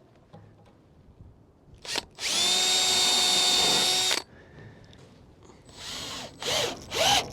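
Power drill spinning up and running at a steady pitch for about two seconds, then stopping abruptly, as a hole is drilled for a railing panel's mounting screws. A few short handling knocks follow near the end.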